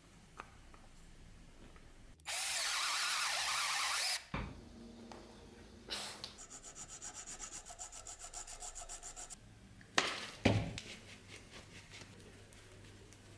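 Hand tools working wood at a bench vise: a loud steady scraping for about two seconds, then rapid even strokes. Two sharp knocks come about ten seconds in.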